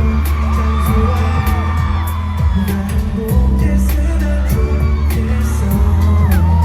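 K-pop boy group singing live over a pop backing track with a heavy bass and steady beat.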